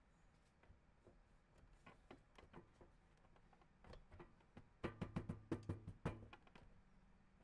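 Faint knocks and clicks of tools and metal parts being handled during bumper work, coming in quick succession, with a louder cluster about five to six seconds in.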